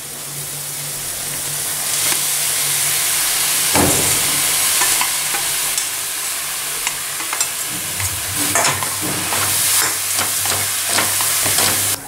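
Frying sizzle from a hot pan of tomato-onion masala as wet puffed rice is tipped in from a sieve and stirred with a spatula. A steady hiss runs throughout, with scattered clicks of the spatula against the pan and a stronger knock about four seconds in.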